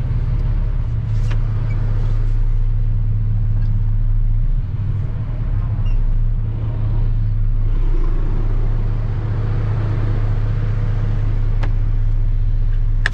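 Truck engine idling steadily, a low even hum heard from inside the cab.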